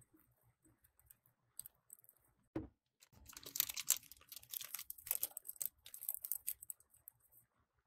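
Plastic piping bag crinkling and rustling in the hands as it is squeezed around whipped cream to press out the air, after one soft thump about two and a half seconds in.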